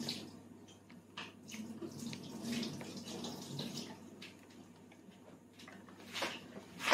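Faint running water, like a tap, with a few small clicks, then two sharper knocks near the end.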